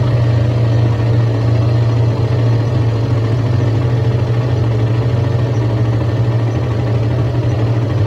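Suzuki GSX-S150's stock single-cylinder four-stroke engine idling steadily while the motorcycle stands in traffic.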